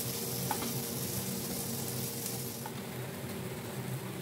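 Marinated chicken tikka on metal skewers sizzling over an open gas flame on a wire roasting mesh, a steady hiss with a faint light click about half a second in. The higher part of the hiss drops away after about two and a half seconds.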